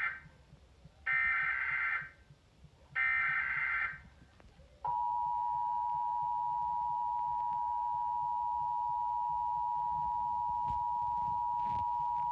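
Emergency Alert System broadcast of a nationwide test. It begins with the end of one and then two more buzzing data bursts of the SAME header, each about a second long. About five seconds in comes the steady two-tone attention signal.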